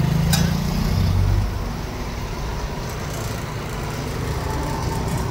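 Street traffic noise: passing vehicles with a steady low rumble, heavier in the first second and a half, and one sharp click near the start.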